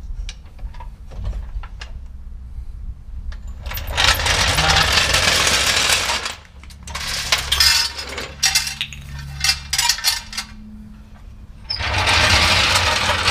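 A floor jack and a transmission jack being lowered and pulled out from under a truck on a concrete floor: two loud stretches of rattling about two seconds each, a few seconds in and again near the end, with metal clinks between.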